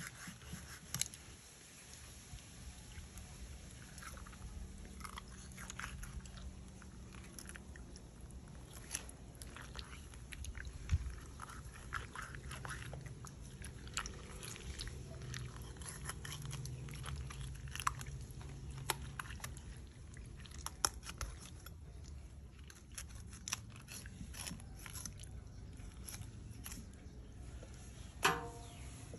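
Kitchen knife slicing through the flesh and skin of a large hybrid Mekong giant catfish on a wooden chopping block: irregular wet cutting and scraping, with a few sharper knocks.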